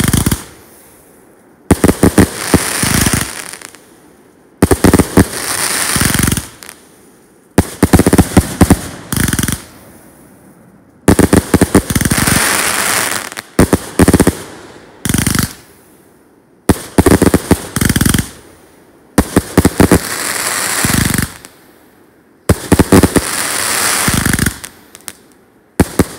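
Aerial fireworks going off in a steady series, a new one about every three seconds. Each starts with a few sharp bangs and trails off into a second or two of crackling.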